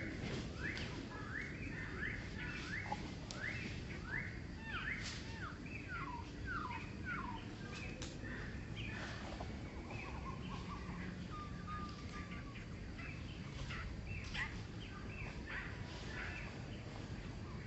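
Birds chirping in quick runs of short, high calls, thick and fast for the first several seconds and more scattered after that, over a steady low background noise.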